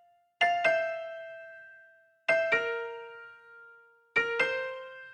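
Background music: soft bell-like electric piano notes struck in pairs, three pairs about two seconds apart, each ringing out and fading.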